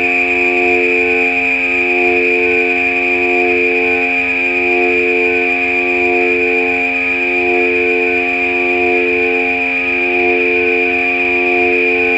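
Ambient electronic drone music from Korg Volca synthesizers: a high tone held steady over lower sustained organ-like tones whose notes shift every couple of seconds.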